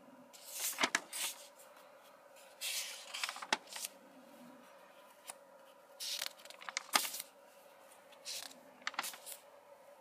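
Notebook paper pages rustling and crinkling as they are turned and handled, in four short bouts about two seconds apart.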